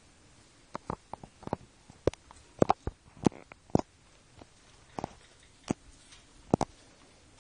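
Irregular light clicks and taps, a dozen or so spread over several seconds, from small pets' paws and claws on a parquet wood floor.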